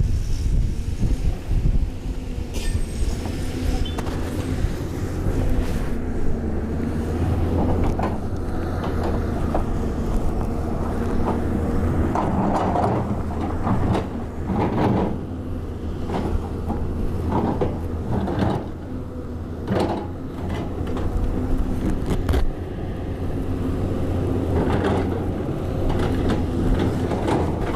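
Caterpillar 320D hydraulic excavator's diesel engine running steadily under load, while its bucket scrapes and knocks against a steep earth-and-rock slope. The scrapes and clanks come again and again, thickest through the middle and latter part.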